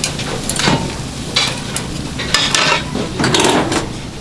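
Food sizzling in a hot pan, with several irregular clinks and scrapes of utensils against cookware.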